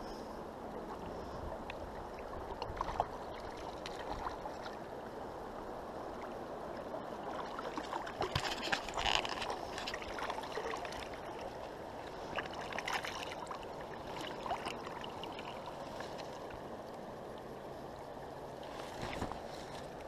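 Fast-flowing river water rushing steadily, with scattered short sharp sounds on top, most of them in a cluster near the middle.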